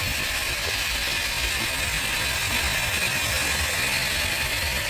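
Traxxas TRX-4 1/10-scale RC crawler driving: a steady gritty whirr from its electric motor and geared drivetrain, with uneven low rumble underneath.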